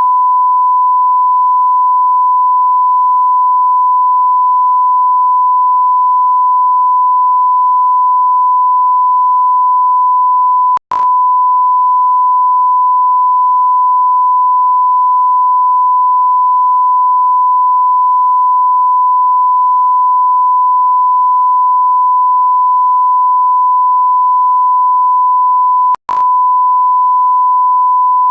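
Continuous electronic beep: a single pure tone held at one steady pitch, the kind used as a censor bleep or test tone. It cuts out for an instant with a click about eleven seconds in and again near the end, then carries on.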